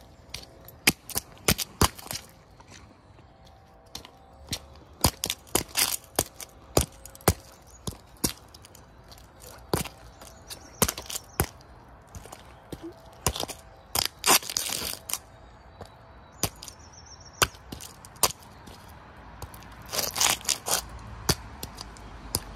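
A small toy car cracking and crunching under sneaker soles on wet asphalt as it is stepped on and ground. A string of sharp cracks comes in irregular clusters, with a longer grinding crunch about fourteen seconds in.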